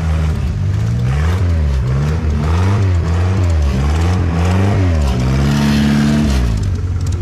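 Dune buggy engine revving up and down repeatedly, about once a second, as it is driven through deep mud, then held high for about a second before dropping off near the end.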